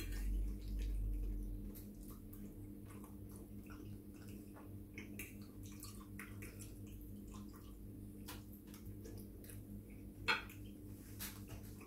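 Close-up chewing of soft pasta: many small wet mouth clicks and smacks, with a sharper clink of a metal fork against the plate about ten seconds in. A low steady hum sits underneath.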